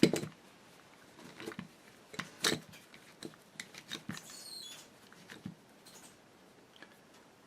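Scattered light clicks and taps from small metal parts of a sewing machine's hand-crank drive being handled, with a short scratchy rubbing, as of a cloth wiping, about four seconds in.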